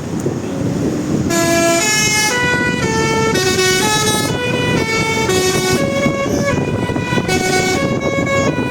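A tour bus's telolet horn, a multi-tone musical air horn, playing a tune of stepped notes, about two a second, starting about a second in, over a low rumble.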